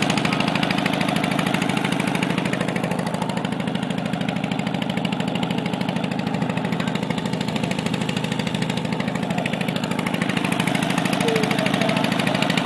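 A small engine on a wooden boat running steadily with fast, even pulses as the boat moves through the water.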